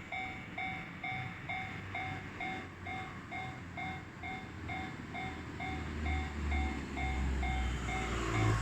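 Japanese level-crossing electronic warning bell ringing over and over, about two dings a second. A train's low rumble builds from about six seconds in and is loudest near the end.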